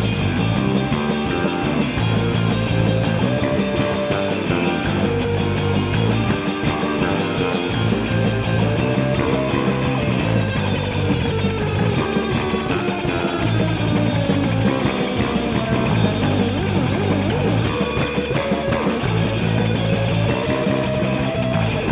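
Instrumental rock music with no vocals: electric guitar lines that slide and bend in pitch over a steady, repeating bass line.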